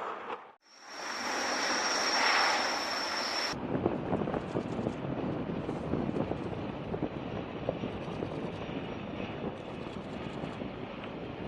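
Jet aircraft engine noise in two edited shots. First a steady high whine over a loud rush. Then, after an abrupt cut about three and a half seconds in, a rougher crackling noise.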